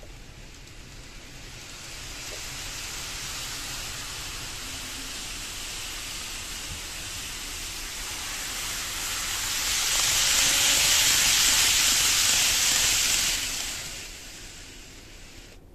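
KATO N-gauge 500 series Shinkansen model train running along the track: a steady hiss of wheels and motor that builds from about two seconds in, is loudest as the train passes close about ten seconds in, and fades away near the end.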